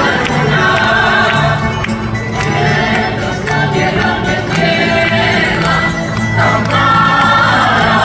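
Men singing a Spanish folk song together in full voice, accompanied by plucked guitars and lutes.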